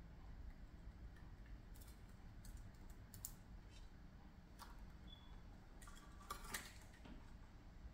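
Near silence with scattered faint ticks and taps, a small cluster of them a little over six seconds in: a budgerigar's claws and beak on a windowsill and a metal statue.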